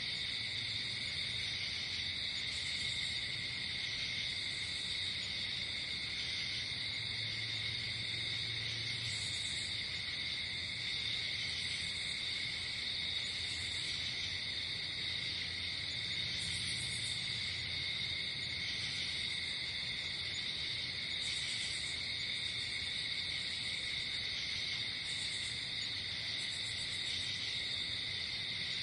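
Night insect chorus: crickets trilling steadily, with a higher insect buzz or chirp breaking in every couple of seconds over a faint low rumble.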